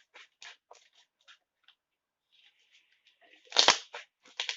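Slime being squished and stretched by hand, giving irregular crackling clicks and pops, with a louder squelch about three and a half seconds in.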